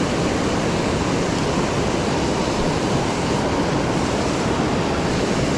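Steady rush of flowing stream water.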